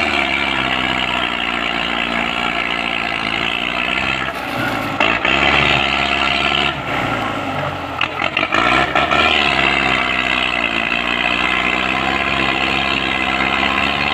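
Belarus tractor's diesel engine labouring while it pulls a trolley heavily loaded with sugarcane, its note rising and falling several times as the revs change.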